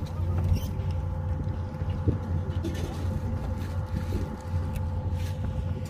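Steady hum of a fishing boat's running machinery: a constant low drone with a thin steady whine above it. A few light clicks sound on deck.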